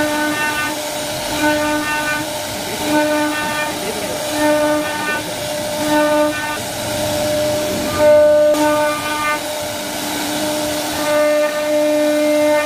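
CNC router spindle cutting a carved groove into a wooden door panel: a steady noisy whir with a pitched whine that comes and goes about every one and a half seconds, held longer about eight seconds in.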